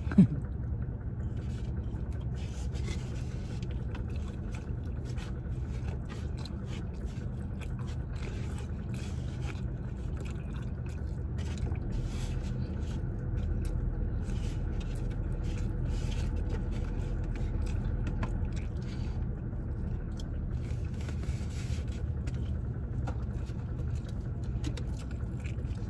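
Eating sounds at a meal: scattered short clicks and scraping from food and utensils, over a steady low background hum.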